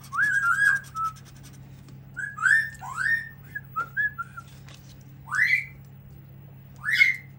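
Pet parrot whistling and calling: a run of short whistled notes and chirps, then two single upward-sliding calls near the end, over a steady low hum.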